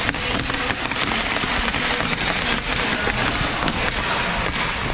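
Rapid, irregular sharp taps and clicks, several a second, over a steady background rumble.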